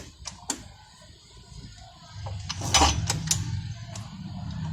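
Hero Honda CBZ Xtreme engine turned over by light kicks with the valve cover off: a series of sharp metallic clicks from the valve gear and kick-start, where one valve tappet is loose and clicking. A low hum comes in about two seconds in.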